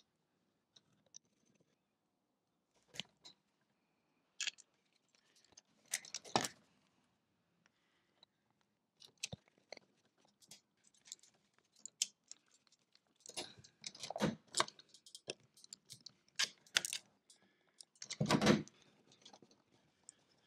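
Scattered clicks, scrapes and metallic clatter of hand tools working on an MK Metal Clad Plus light switch: wire strippers on a solid earth conductor, then a screwdriver turning the terminal and faceplate screws. The handling noise is sparse at first and comes in busier, louder clusters in the second half.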